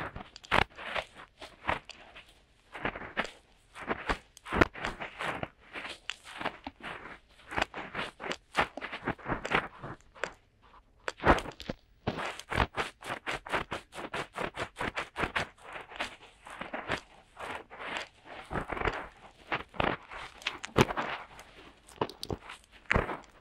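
Fingertips rubbing and scratching at the ear-shaped inputs of a DuoPop 2.0 binaural microphone, heard close up as a dense run of short, dry, scratchy strokes, irregular and in places several a second: finger ear-cleaning ASMR.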